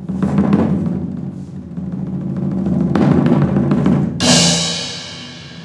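Live stage drums playing a fast roll that swells, then a loud crash about four seconds in that rings on and fades away.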